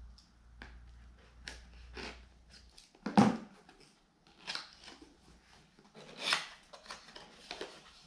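Small folding knife slitting the seal of a cardboard box, with a sharp knock about three seconds in. Then cardboard scraping and rustling as the box lid and inner sleeve are pulled open.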